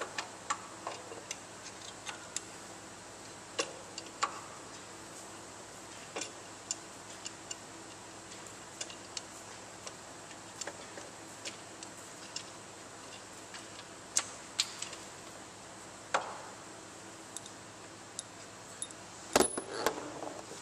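Hand tools clicking and clinking against metal in irregular single clicks while working on the engine-mount bolts, with a louder clunk and brief rattle near the end.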